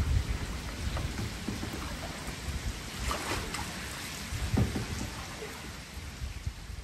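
Outdoor ambience with wind rumbling on the microphone, plus a few light knocks.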